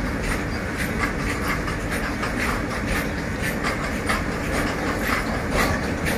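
Loaded coal freight train of BOXNHL open wagons rolling steadily past: a continuous rumble of steel wheels on rail, with a fast, irregular run of clicks as the wheelsets cross rail joints.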